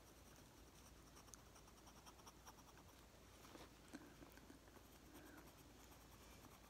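Faint scratching of a pencil on sketchbook paper in short strokes, going back over drawn lines to darken them.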